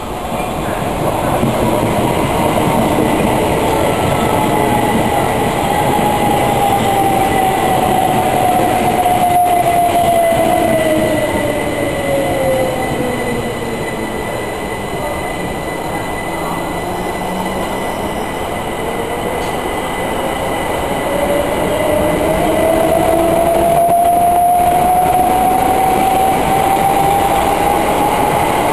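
Southern Class 377 Electrostar electric multiple unit running along the platform, the rumble of its wheels on the rails under a motor whine. The whine falls steadily in pitch for about fourteen seconds, then rises again over the last ten seconds as the train keeps moving.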